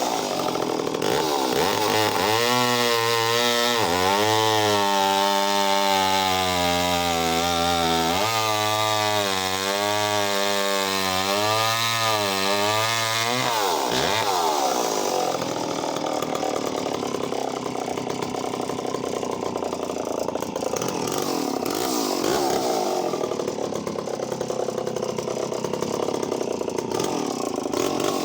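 Echo CS-451VL two-stroke chainsaw cutting through a log of about 10 inches at full throttle, its engine note wavering up and down as the chain bites. About 14 seconds in the pitch drops, and the saw runs on at lower, rougher revs.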